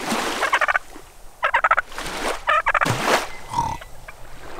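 A tom turkey gobbling three times, about a second apart, each gobble a quick rattling burst, with rushes of noise between them.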